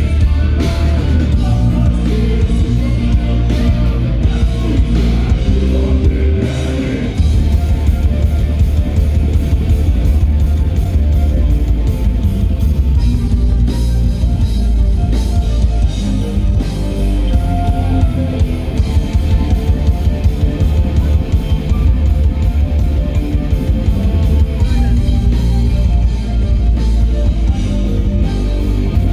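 A folk metal band playing live: distorted electric guitars over a driving drum kit, loud.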